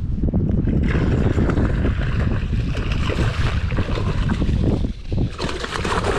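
Wind buffeting the microphone, a steady heavy rumble, with irregular higher rustling noise over it.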